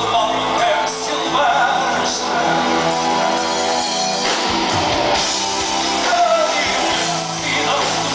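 Live rock band playing: a man singing lead over electric guitars, bass and drums, heard from the audience.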